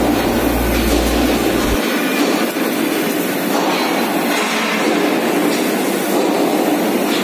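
Gas cutting torch burning with a steady, loud hiss of flame and gas. Under it, a low electrical hum stops abruptly about two seconds in.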